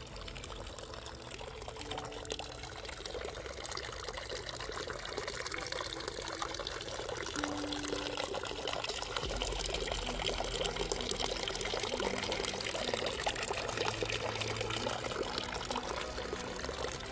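Water splashing and pouring, a dense crackling rush that grows louder over the first several seconds.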